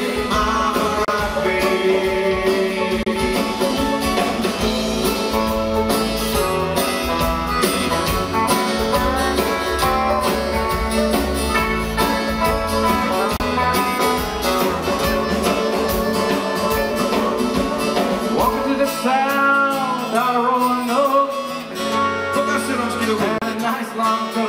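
Bluegrass-style country music: an instrumental passage of picked acoustic guitar and other plucked strings over a steady bass beat, with some sliding notes near the end.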